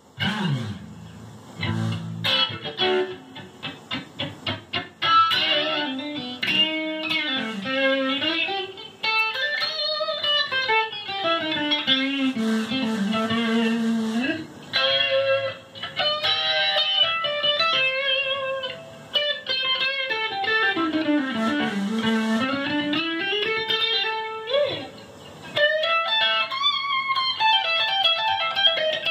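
Electric guitar played solo: a run of quick, short stabbed notes, then a melody line with several long swoops where the pitch slides down and back up.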